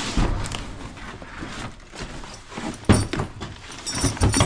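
Items being handled in a cardboard box: a reusable shopping bag rustling and things knocking against the box and table, with a sharp knock about three seconds in and more knocks near the end.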